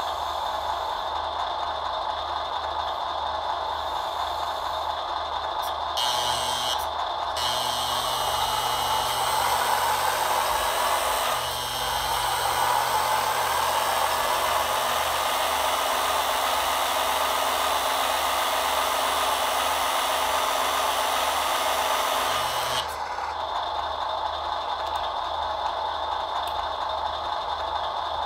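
Hydraulic pump of a scale RC truck-mounted loading crane whirring steadily. From about six seconds to about 23 seconds in it runs louder and fuller as the crane boom moves, then drops back.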